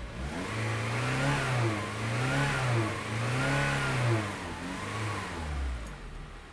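Honda H22A 2.2-litre four-cylinder engine revved four times in a row, each rev rising and falling over about a second. The engine note fades off near the end.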